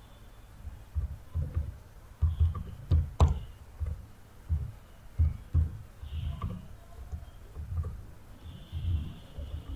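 Typing on a laptop keyboard: irregular dull keystroke thumps, about two a second, with one sharper click about three seconds in.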